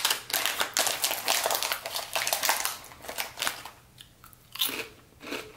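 Crunchy rice crackers being bitten and chewed, a quick run of dense crackling crunches that thins out after about three and a half seconds, with some crinkling of the plastic snack packet.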